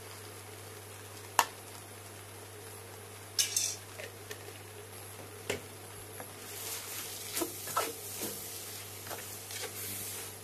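Spatula scraping and knocking against a stainless steel wok as rice vermicelli and cabbage are stir-fried, with a light sizzle. There is one sharp knock about a second and a half in, and busier scraping and tossing over the last four seconds, all over a steady low hum.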